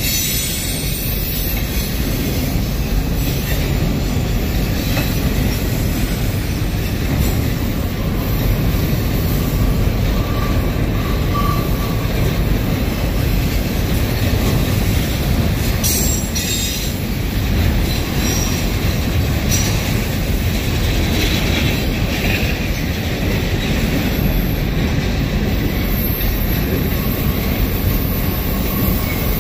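Freight train cars rolling past close by: double-stack intermodal well cars, with a second train of tank cars moving on the far track. A steady loud rumble and rattle of steel wheels on rail, with a faint wheel squeal about ten seconds in and again near the end.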